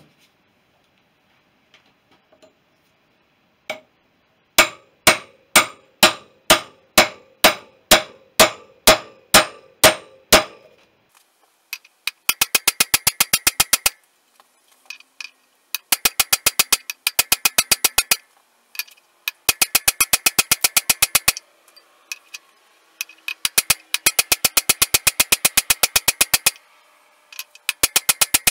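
Hammer blows on steel, driving a wheel bearing into the BSA B31's front hub: about a dozen ringing metallic strikes, roughly two a second. Four bursts of very fast, light metallic taps follow, each lasting two to three seconds.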